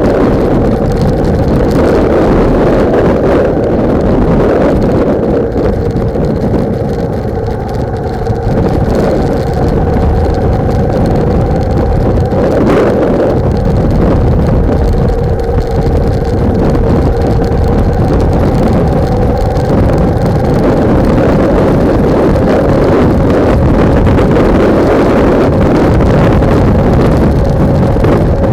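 Loud wind buffeting on a motorcycle-mounted camera's microphone, with the bike's engine running at a steady note underneath. The engine note shifts slightly past the middle.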